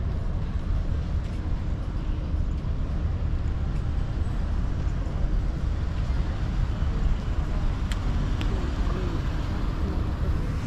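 Steady low rumble of street traffic, with two faint clicks about eight seconds in.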